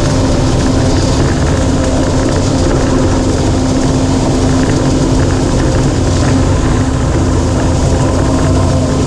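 Heavy diesel machinery running steadily under load. A constant humming tone sits over the dense engine noise without letting up.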